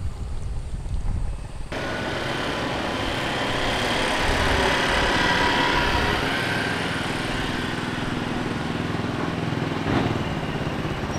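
Small motorbike engines running in town street traffic, the noise swelling and easing as bikes pass. Before that, about the first two seconds hold only a low rumble.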